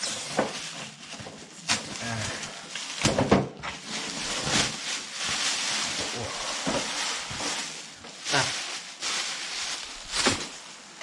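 Thick black plastic bag rustling and crinkling as it is torn open and pulled off a cardboard box, with a few sharper crackles and knocks along the way.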